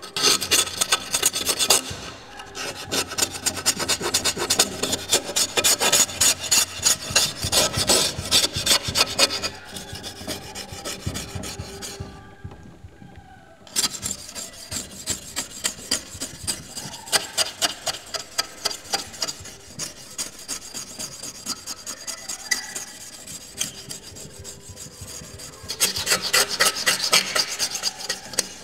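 Rapid rasping, scraping strokes in a quick continuous run. They thin out and drop for a few seconds about halfway through, then come back and grow loud again near the end.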